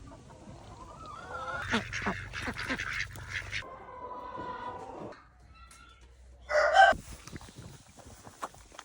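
Farm geese honking and calling in short, pitch-bending calls, with one loud honk about six and a half seconds in.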